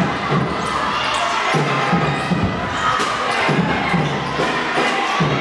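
Crowd of spectators at a basketball game shouting and cheering in a gymnasium, with repeated low thumps coming in pairs about every second.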